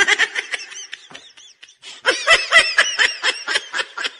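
Young men laughing hard in rapid, high-pitched bursts, with a short lull about a second and a half in before a louder second wave of laughter.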